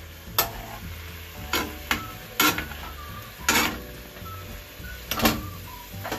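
Metal spoon stirring cubes of fish in a steel pan, scraping and knocking against the pan several times about a second apart, over a low sizzle of the fish cooking in a little oil and water.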